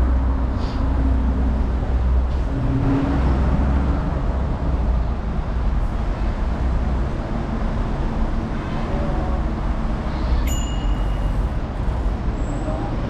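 Steady road traffic noise with a low wind rumble on the microphone, heard while cycling along a road. A short, bright ping rings out about ten and a half seconds in.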